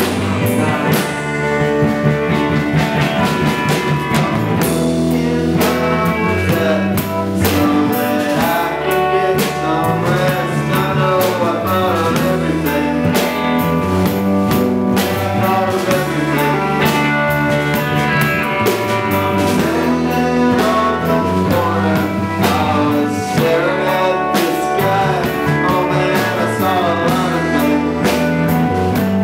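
Live rock band playing a song, with electric guitar prominent.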